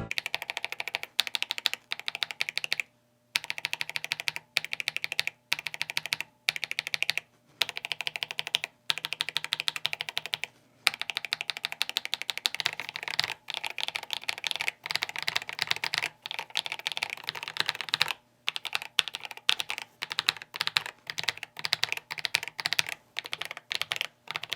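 Typing on a mechanical keyboard fitted with Akko Matcha Green linear switches, stock out of the box and unlubed: a fast, steady run of key clacks with a few brief pauses.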